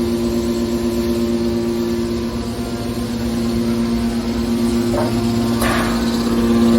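Hydraulic scrap baler running with a steady, loud machine hum. A short noisy burst comes about five and a half seconds in.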